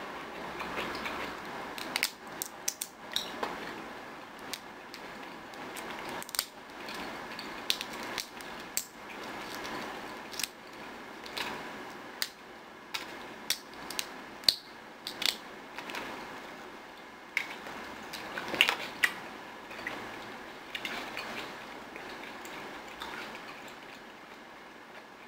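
Close-miked eating sounds: wet chewing and mouth sounds with many scattered sharp clicks and crackles, including the brittle shell of a lychee being cracked and peeled by hand.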